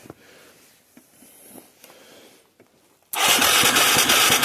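Light handling noise, then about three seconds in the starter suddenly cranks the Yamaha Moto 4 200 ATV's engine over, loud and steady. The engine is being turned over to check the spark, which is weak.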